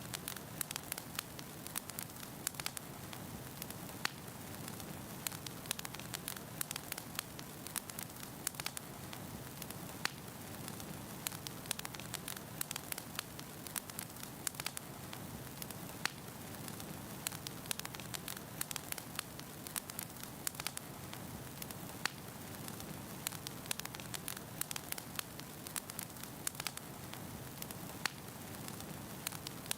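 Wood fire burning in a fireplace: a steady low rush with frequent, irregular sharp crackles and pops of burning firewood.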